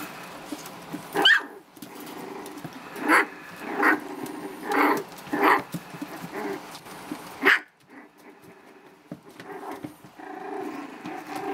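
Four-week-old Havanese puppies play-fighting, growling and giving about six short high yips, with a quieter stretch near the end.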